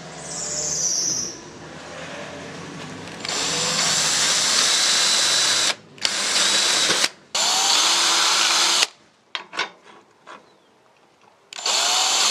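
Power drill with a twist bit boring an extra screw hole through a metal curtain rail. The drill runs in bursts, spinning up at each start and stopping briefly twice. It pauses for a couple of seconds with a few clicks, then starts again near the end.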